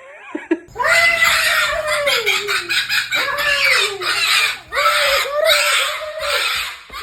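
A parrot screeching: three long, harsh, raspy screeches, each wavering and dropping in pitch, beginning about a second in.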